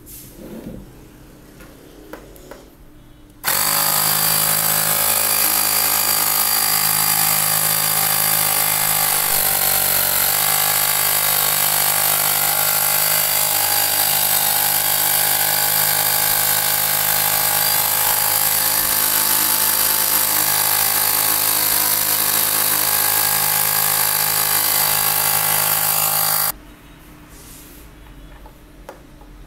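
12-volt 300 psi mini air compressor switching on about three seconds in and running steadily and loudly while it inflates a balloon, then cutting off abruptly near the end. A few light handling clicks come before it starts.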